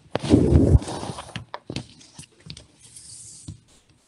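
Handling noise close to a computer microphone as people change places in front of it: a loud, low rustling thump about half a second in, then scattered light clicks and knocks.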